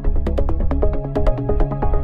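Electronic background music with a fast, steady beat.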